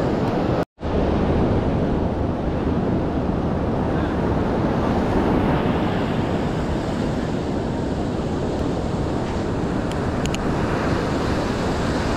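Surf breaking and washing on the shore, a steady rushing noise with wind buffeting the microphone. The sound drops out completely for a split second about a second in.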